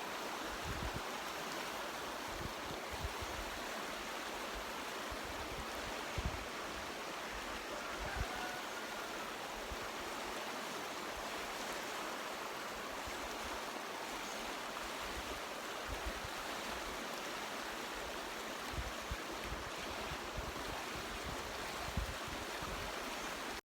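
Steady rushing of a mountain creek, with occasional short low thumps.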